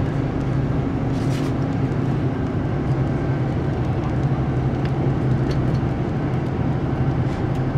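Steady low drone of a moving road vehicle's engine and tyres, heard from inside the cabin.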